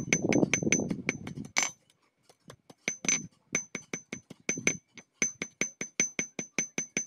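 Quick light metallic taps, several a second, each with a short high ring: steel wire being tapped and worked against a steel block. A scraping rustle runs under the taps for the first second and a half.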